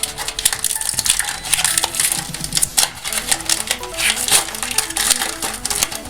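Trading cards and a foil booster pack wrapper being handled: a dense run of crinkling, clicking and snapping. A music track plays underneath.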